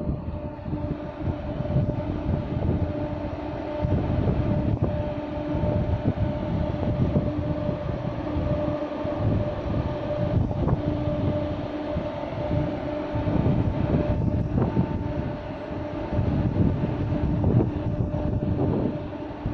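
Large ventilation fan at an underground MRT station's facility building running continuously: a steady droning hum over a rushing, uneven low rumble, metered at about 67 decibels. It is the night-time noise that the recorder believes comes from some sort of fan being turned on.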